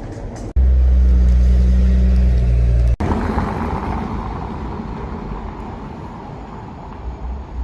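Street traffic: a loud low rumble of road vehicles that starts and stops abruptly, then a broad wash of traffic noise that slowly fades.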